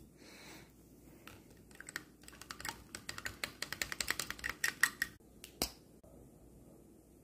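A paintbrush swirled and tapped against the inside of a small plastic cup of rinse water, making a fast run of light clicks, about eight to ten a second, with one louder click near the end.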